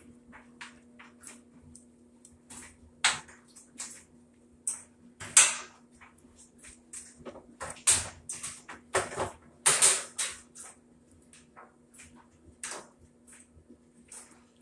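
Irregular clicks, knocks and short scrapes of plastic and metal parts being handled inside an open top-load washing machine cabinet during a suspension rod repair, with the loudest knocks about halfway through. A steady low hum runs underneath.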